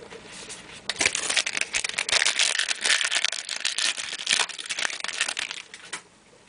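A trading card pack wrapper being torn open and crinkled by hand, a dense run of crackling starting about a second in and stopping about a second before the end.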